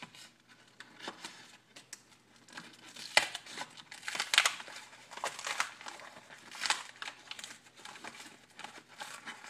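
Sticky cardboard packaging being peeled, torn and crinkled open by hand to free the silver bars inside, in irregular rustling and crackling bursts. The loudest bursts come about three, four and a half and seven seconds in.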